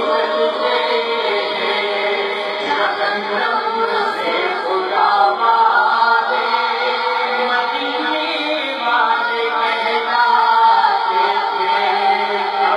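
Male voices singing an Urdu manqabat, a devotional song for Imam Hussain, without instruments, amplified through a public-address system.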